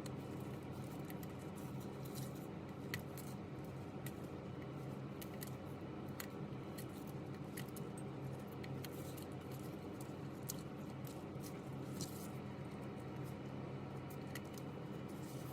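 Scattered light clicks and taps of small parts and hand tools being handled, irregularly spaced, over a steady low hum.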